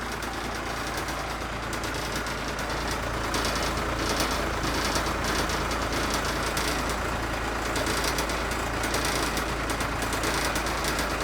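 Old school bus diesel engine running with a steady clattering rumble, a little louder after the first few seconds.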